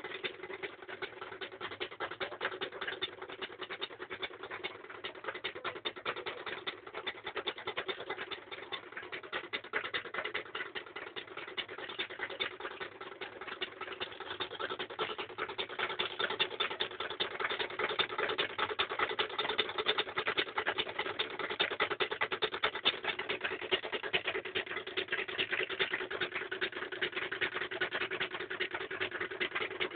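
Three-coil reed-switch pulse motor running: fast, dense clicking from the switching, over a steady hum. It gets a little louder about halfway through.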